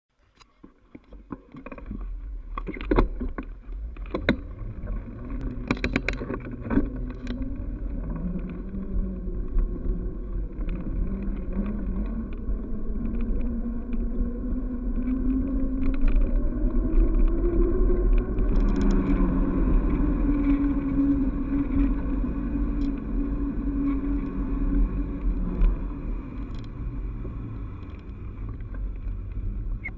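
Steady low rumble of wind on the microphone and tyres on the road from a handlebar-mounted camera as a mountain bike rolls downhill on tarmac, with a few sharp knocks and rattles in the first several seconds as the bike gets moving.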